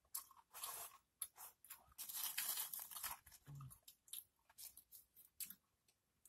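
Dorito tortilla chips rustling and crackling as they are picked out of a pile in a glass bowl, in short bursts with small clicks, the longest from about two to three seconds in.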